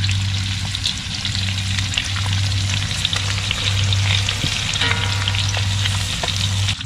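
Battered tempura deep-frying in hot cooking oil: a dense, steady crackling sizzle full of small pops, with a low hum underneath.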